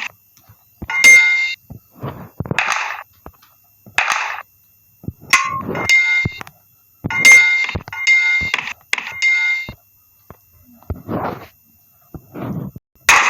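A series of separate metallic clangs and knocks with short pauses between them. Several of the strikes ring on with the same clear bell-like tone, as if one metal object is being hit or dropped again and again.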